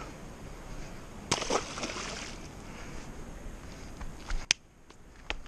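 A released zander hitting the stream, a sudden splash of water about a second in, over the steady rush of flowing water. A single sharp click comes near the end.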